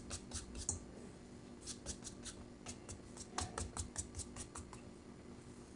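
Hands patting and pressing a rolled log of bread dough on a floured countertop: light, quick taps and brushes in short runs of several a second, over a steady low hum.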